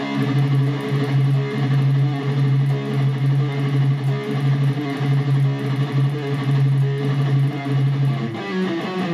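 Electric guitar playing a fast palm-muted metal riff on the low strings, with a quick pull-off in the middle of each bar.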